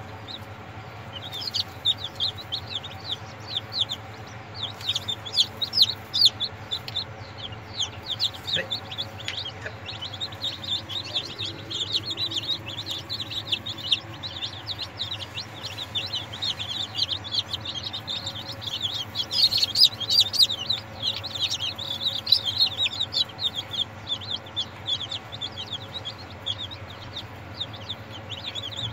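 Newly hatched chicks peeping nonstop, many short high chirps overlapping, busiest about two-thirds of the way through, over a steady low hum.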